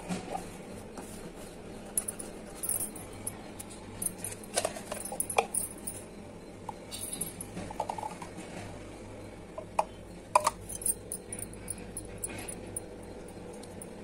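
Plastic being handled: scattered light clicks, taps and rustles from a cut plastic bottle and a plastic bottle cap, with a few short squeaks, over a faint steady hum.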